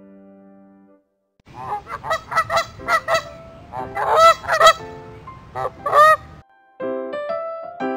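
Goose honking: a fast run of many loud honks lasting about five seconds. Soft piano music fades out just before the honks and comes back near the end.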